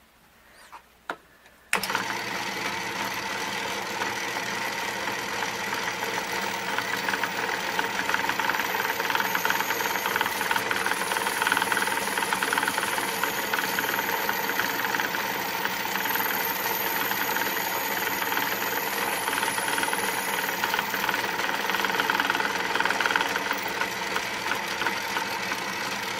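Atlas lathe switched on about two seconds in, after a couple of clicks. Its motor and drive then run at a steady speed while a twist drill bores into the end of a brass rod.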